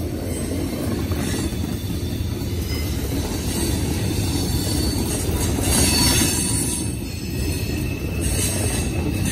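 Freight cars of a CSX mixed freight train rolling past on the rails: a steady rumble of wheels on track, with high-pitched wheel squeal rising about six seconds in and again near the end.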